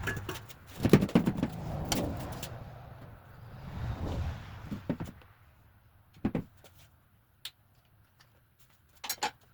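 Irregular knocks, clicks and rattles of tools and metal parts being handled while a dirt bike's radiator is unbolted. The sounds come in clusters, busiest in the first couple of seconds and again near the end, with a quieter stretch between.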